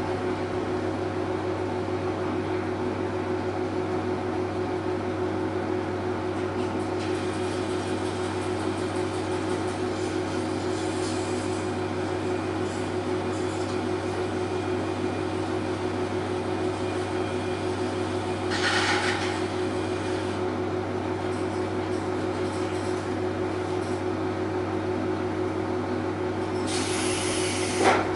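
Diesel railcar engine idling with a steady hum while the train stands at a station. Two short hisses break through, one past the middle and one near the end.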